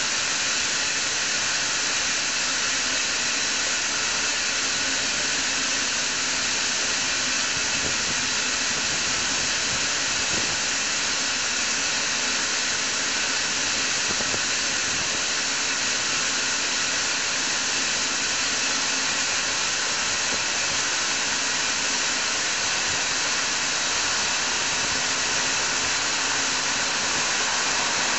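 Grain dryer fan running: a loud, steady rushing hiss with a faint machine hum under it, unchanging throughout.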